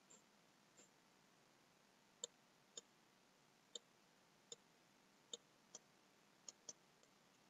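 Faint computer mouse clicks: eight short, sharp clicks at irregular intervals, starting about two seconds in, over quiet room tone.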